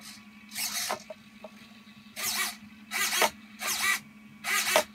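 Hobby servos in an R2-D2 droid's door and arm mechanism, moved by hand control in short, jerky steps: five brief whirring bursts of motor and gear noise. A low, steady servo buzz runs between them.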